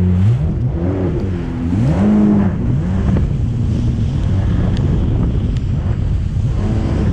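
Jet ski engine revving up and down several times as it pulls away, then running steadily at speed, with water rushing past the hull and wind on the microphone.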